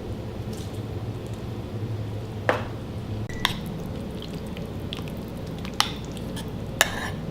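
Chopped chicken being stirred into thick sauce in a crock pot: soft wet squishing, with a few sharp clinks of the spoon against the pot.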